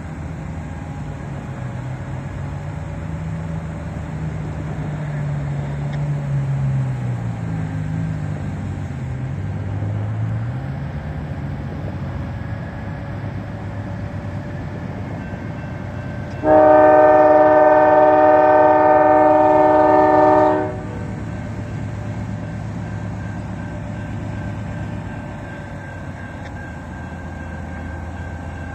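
Freight locomotive's multi-note air horn sounding one long blast of about four seconds, a little past the middle, over a steady low diesel engine rumble that shifts in pitch.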